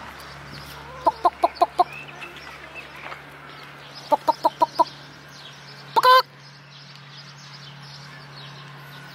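Flock of free-range hens clucking: two quick runs of about five clucks each, then one loud squawk about six seconds in, over a low steady hum.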